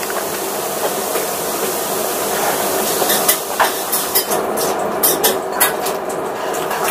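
Dishes and cutlery clinking and clattering over a steady background hiss of kitchen noise, with a run of sharp clicks from about three to six seconds in.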